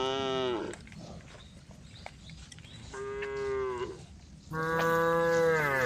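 Cows mooing in three calls: one at the start, a shorter one about three seconds in, and a longer one near the end. Each call drops in pitch as it ends.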